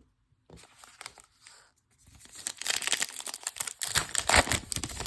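Crinkly foil wrapper of a trading-card pack being torn open and crumpled, faint rustling at first, then loud crackling tearing from about two seconds in.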